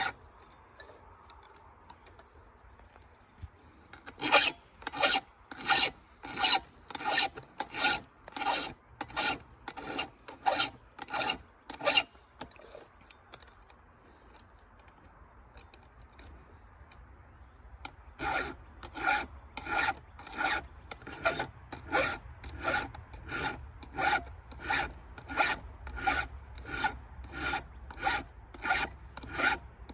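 Hand file strokes across chainsaw chain teeth, a steady rasping rhythm of about one and a half strokes a second. The strokes stop for several seconds in the middle, then start again.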